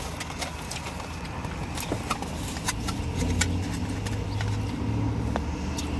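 Steady low hum of a car engine, swelling slightly in the middle, with scattered small clicks and rustles from a paper food tray being handled.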